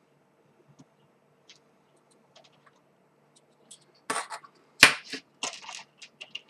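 A few faint ticks, then a run of sharp clicks and taps about four seconds in, the loudest about five seconds in, from a circuit board and its LEDs being handled on the bench.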